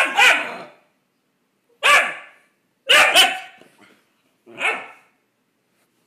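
Puppy barking: six short barks, some in quick pairs, with pauses between them.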